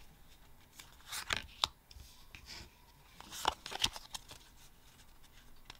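Yu-Gi-Oh! trading cards being handled: cards slid against each other and set down on a playmat, heard as two clusters of sharp clicks and short rustles, about a second in and again just past three seconds.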